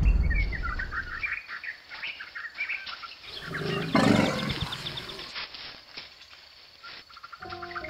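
A low rumble dies away in the first second or so while birds chirp. About four seconds in, an African elephant close by gives one short, loud, low call with a rush of breath.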